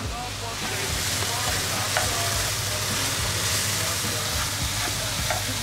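Sliced vegetables and chicken sizzling in a nonstick frying pan on a gas burner as they are stirred with a spatula. The steady sizzle grows fuller about half a second in, with a few light scrapes of the spatula against the pan.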